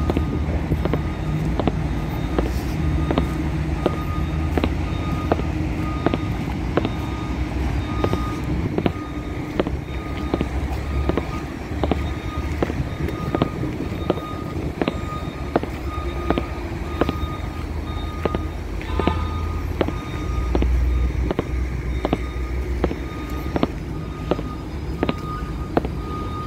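A truck's diesel engine rumbling steadily while a vehicle warning beeper sounds short beeps with a sharp tick, about twice a second. The rumble swells briefly about twenty seconds in.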